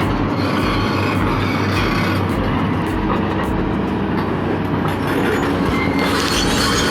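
Heavy tracked machine running, with steady metallic squealing and clanking of steel tracks.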